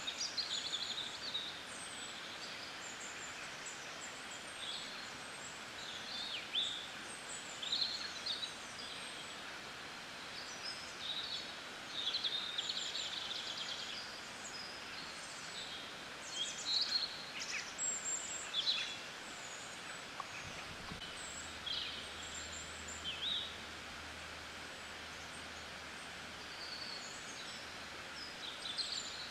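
Small birds chirping and twittering, many short calls scattered throughout, over a steady hiss of rain. A faint low hum comes in about twenty seconds in.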